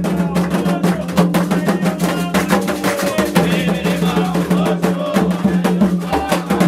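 Candomblé music: atabaque hand drums playing a dense, driving rhythm with voices singing over them.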